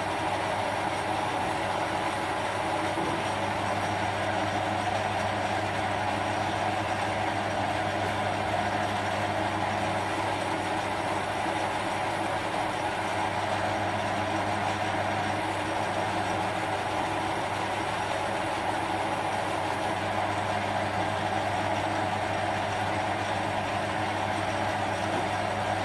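Small metal lathe running steadily while a 10 mm end mill held in the tailstock cuts into the spinning chrome-moly socket blank, a constant motor hum under the noise of the cut.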